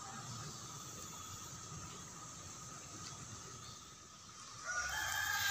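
A bird's long, loud call, held with several steady pitches, starting near the end over a steady faint outdoor hiss.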